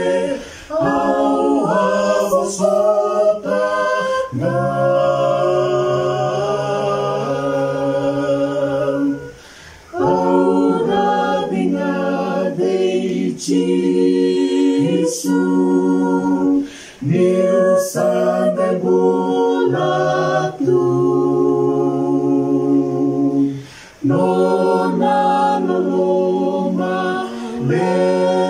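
A small mixed group of men and women singing a hymn a cappella in parts, in long held phrases with short breaths between them.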